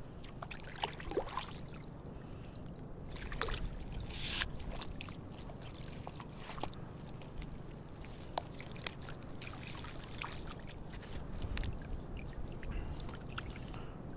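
Water sloshing and splashing at close range, with scattered sharp clicks and knocks and a brief louder splash about four seconds in.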